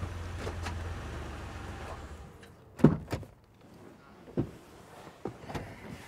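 A Pontiac Aztek's engine runs with a steady low hum and is switched off about two seconds in. About half a second later comes a loud sharp clunk, then a few softer knocks and clicks as the driver's door is opened.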